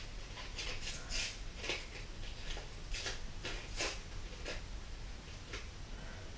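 Plastic lure packaging crinkling and rustling as a small spinner-bladed jig head is worked out of it by hand: a faint, irregular run of small crackles and clicks.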